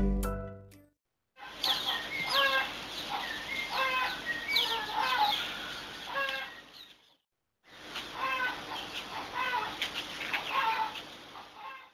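Chickens clucking in repeated short calls, in two stretches with a brief break about seven seconds in.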